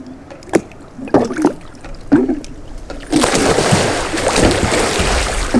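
Water splashing around a capsized sea kayak as the paddler goes over for a hand roll: a few light knocks and water sounds at first, then about three seconds in a sudden, continuous splashing and churning of water.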